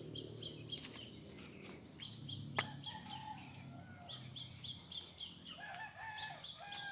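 Outdoor ambience: a steady high chirring of insects, with distant bird calls repeating in short pitched phrases about three seconds in and again over the last second and a half. One sharp click stands out about two and a half seconds in.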